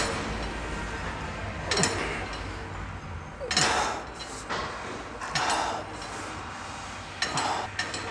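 Lat pulldown machine's weight stack clinking and knocking as the bar is pulled down and let back up, a clink every second or so, several with a short falling whir from the cable over the pulleys.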